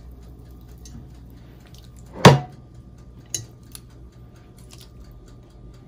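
Metal tongs laying marinated pork onto the wire rack of a glass-bowl countertop oven: one sharp clank about two seconds in with a short ring, then a couple of lighter clicks, over a faint steady hum.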